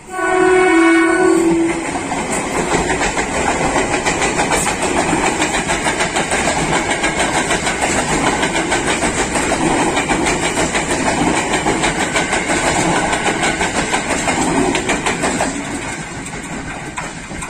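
KRL Commuter Line electric multiple unit sounding its horn once for about a second and a half, then passing close by with a steady rumble and wheels clattering over the rail joints, fading in the last couple of seconds.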